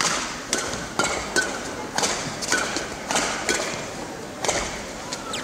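Badminton rally: rackets striking the shuttlecock back and forth, heard as a string of sharp knocks about every half second, mixed with players' footsteps and brief shoe squeaks on the court floor.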